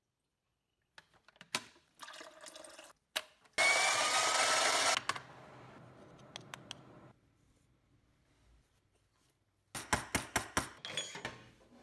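Kitchen sounds of espresso being made by hand. Scattered clicks come first. About four seconds in there is a loud rushing sound, about a second and a half long, with a faint rising tone. Near the end comes a quick run of sharp metal taps and clicks.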